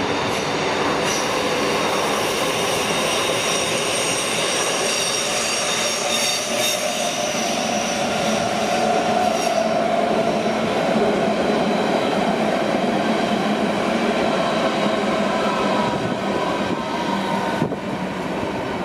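Berlin S-Bahn electric multiple unit running past on the rails, with high thin squealing tones through the first half. It is loudest as the cars pass close by, then quieter as the train moves away near the end.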